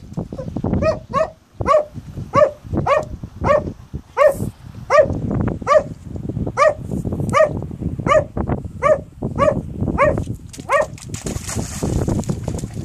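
A small shaggy dog barking over and over at rocks in a shallow pool, about fifteen sharp barks, one every half-second or so, with water sloshing under them; the barking stops about two seconds before the end, leaving only splashing.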